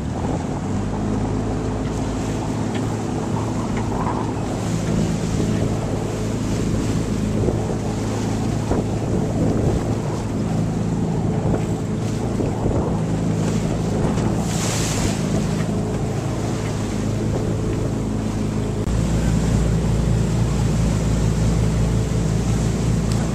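Sailboat's auxiliary engine running steadily under power, with wind buffeting the microphone and water rushing by. About 19 seconds in, a second, deeper engine note grows louder as a cabin powerboat passes close alongside.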